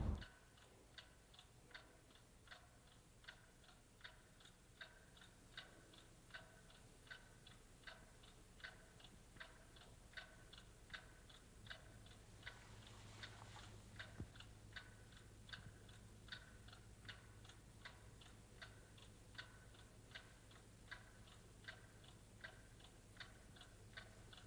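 Faint clock ticking steadily, about two ticks a second, with a low hum coming in about halfway through.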